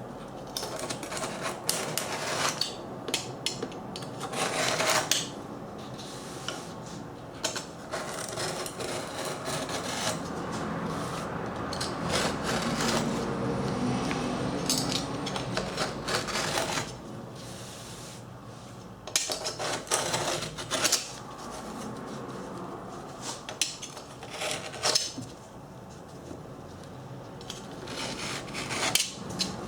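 Irregular hand rubbing and scraping on an antique samovar's metal during its repair, broken by frequent short clicks and knocks.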